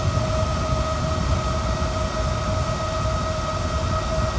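The stock cooling fan of an RV refrigerator, a cheap small computer-style fan, running at full speed. It makes a steady, really loud whine with a low rumble beneath it. This is the obnoxious noise of the original fan, which kicks on when the poorly vented fridge compartment gets hot.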